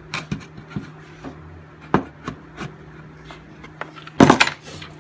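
Scattered light wooden knocks and taps as a 2x4 leg block is shifted and lined up on a carriage bolt inside a plywood board frame, with a louder clatter a little after four seconds in.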